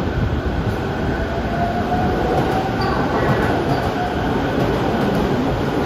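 E231 series 500 commuter electric train pulling out of a station platform: steady rumble and running noise of the cars and wheels, with a faint whine that rises slowly in pitch as it gathers speed.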